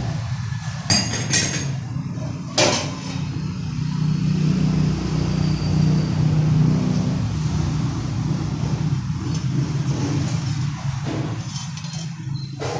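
Heavy steel discs being handled, giving a few sharp metal clanks in the first three seconds, over a steady low machine hum.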